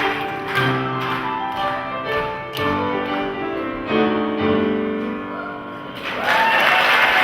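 Keyboard music playing sustained chords that change about once a second, then about six seconds in the congregation breaks into applause.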